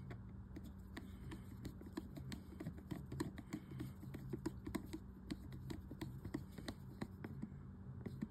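Screwdriver with a bent blade turning the handle-retaining screw inside a Zebco 33 spincast reel: a faint run of small, irregular clicks and ticks, several a second.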